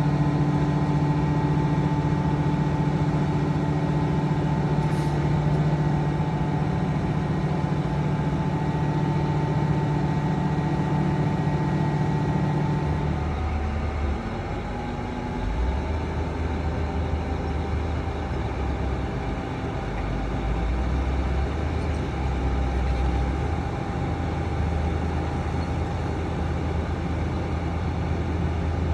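Heavy diesel engine of earthmoving machinery running steadily. About halfway through the engine note changes: the steady hum gives way to a lower, uneven drone.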